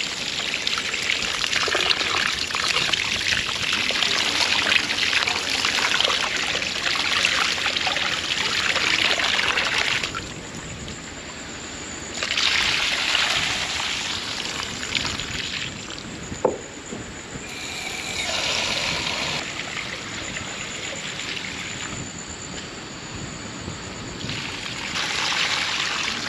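Tap water running and splashing into a terracotta bowl of rice as it is washed by hand, with the cloudy rinse water poured off over the bowl's rim onto the ground. The flow stops about ten seconds in and starts again a couple of seconds later, with one sharp knock a little past the middle.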